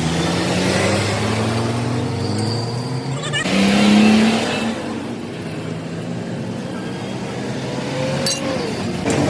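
Motor vehicle engine running, its pitch rising slowly as it speeds up, louder about four seconds in, with a brief rise and fall in pitch near the end.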